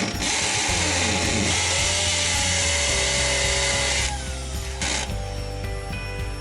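Electric drill boring into a brick wall while a vacuum cleaner held at the hole sucks up the dust. The loud hiss stops about four seconds in, leaving a quieter steady hum.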